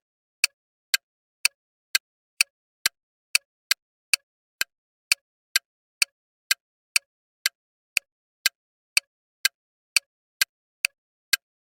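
Bomb timer sound effect: sharp, evenly spaced ticks, about two a second, with silence between them.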